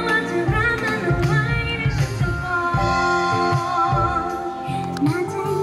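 Live band music: a woman singing a held, wavering melody over guitar and a steady low beat.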